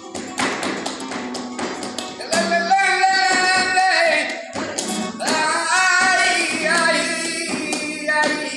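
Live flamenco bulería: flamenco guitar with sharp rhythmic hand-clapping (palmas), and a sung cante voice coming in about two seconds in and carrying on over them.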